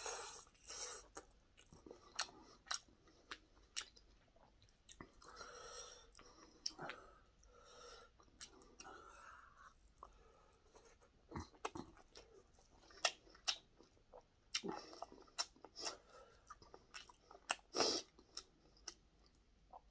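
A man chewing a mouthful of rice and breaded pork cutlet: irregular wet smacks and sharp clicks of the mouth and teeth, with a softer breathy stretch about five to nine seconds in.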